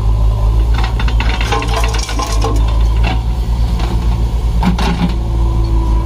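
Clods of mud and soil pouring from a backhoe bucket into a steel tractor trolley, clattering and knocking for about two seconds starting a second in, with a few more knocks near the end. The diesel engines of the backhoe loader and tractor run steadily underneath.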